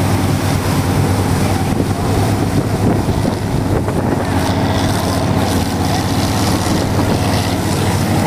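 Motorboat engine running steadily under way, with the wake churning behind the boat and wind buffeting the microphone.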